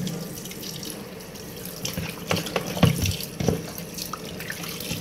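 Tap water running into a steel bowl of raw fish pieces as they are rinsed, with a few louder splashes and knocks a couple of seconds in.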